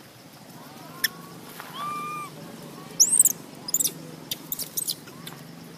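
Baby macaque calling: a thin whistled cry about two seconds in, then a sharp high-pitched squeal about a second later, followed by a scatter of short clicks.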